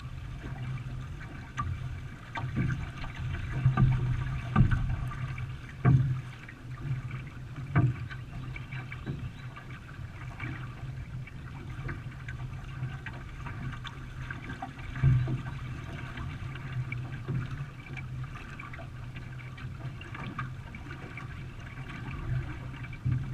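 Canoe paddling on a river: water splashing and trickling off the paddle, with a few sharp louder knocks, about five in all.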